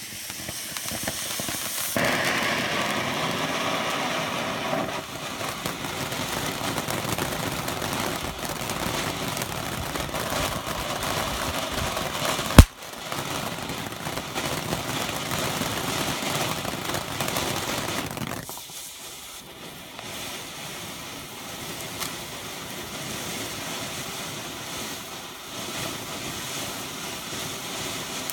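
Firestar pumpkin firework fountain burning with a steady hiss of spraying sparks. A single sharp crack about halfway through, and the spray weakens somewhat for the last third.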